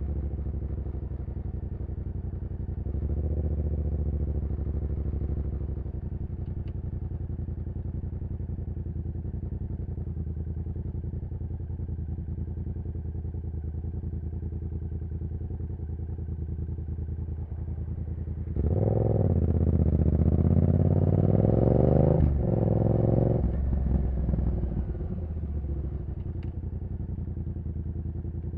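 2015 Yamaha MT-07's CP2 parallel-twin engine through a full race exhaust, cruising at steady revs. About two-thirds of the way in, the throttle opens and the engine revs up loudly, with a short break partway through, then drops back to a steady cruise.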